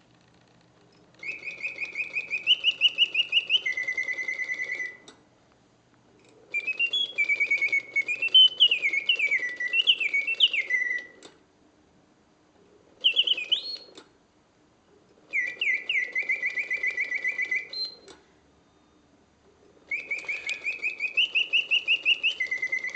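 Vintage Karl Griesbaum mechanical singing bird cage, its bellows-driven whistle singing in five trilled, warbling phrases of rising and falling notes, separated by pauses of a second or two. A soft hiss from the bellows and movement runs under each phrase. The whistle is strong and clear, the sign of a freshly restored movement working as it should.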